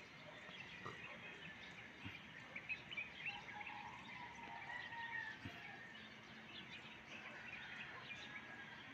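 Faint outdoor ambience: small birds chirping repeatedly, with a longer drawn-out call in the middle.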